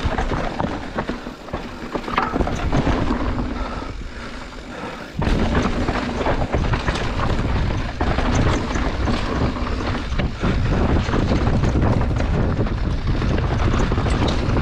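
Mountain bike descending a rough downhill trail, heard through an action camera: wind buffeting the microphone with tyre noise and rattling over the ground. It drops quieter for a few seconds, then jumps back to full loudness about five seconds in.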